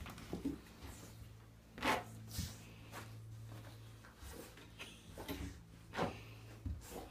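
A dog rubbing and squirming against a woven rug, making a few short scratchy scuffs, the loudest about two seconds in and a cluster near the end, over a low steady hum.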